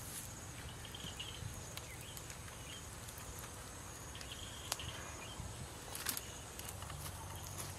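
Quiet outdoor ambience with a few faint distant chirps, and a few light clicks and rustles as a stick is handled over dying embers.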